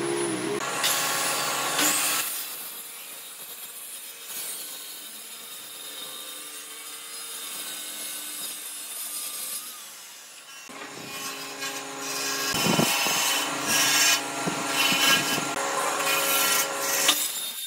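Electric power tool running and working wood. It is loud at first, quieter through the middle, and louder again in the second half, with a few knocks.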